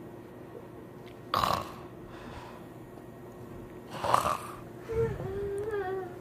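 A person making short, rough noises with the voice, once about a second in and again about four seconds in, then a wavering hummed tone near the end.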